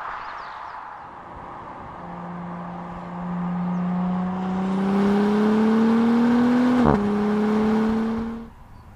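Audi SQ5's V6 engine accelerating hard, its pitch climbing steadily, dropping sharply at an upshift about seven seconds in, then climbing again before cutting off suddenly near the end. A hiss rises along with it.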